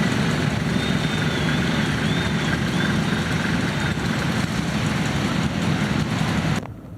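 An engine running steadily, with an even, low rumble that cuts off abruptly near the end.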